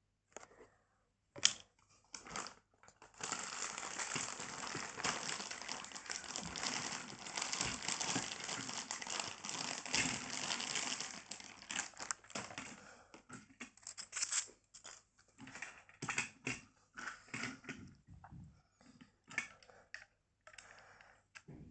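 Plastic wrapping bag crinkling and rustling for several seconds as toy train cars are unwrapped, then scattered clicks and rustles of the plastic cars being handled.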